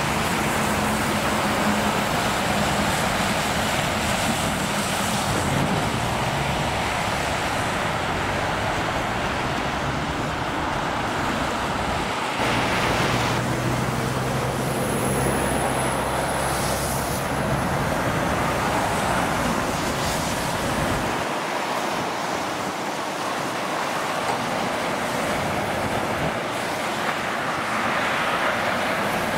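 Steady motorway traffic noise: tyre roar and engines of passing cars and trucks, with a stronger low engine drone passing about halfway through.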